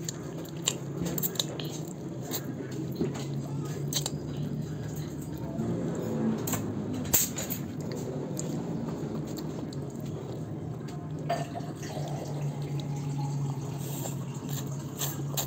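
A child slurping and chewing pancit canton noodles: wet sucking and mouth sounds with occasional sharp clicks, over a steady low hum.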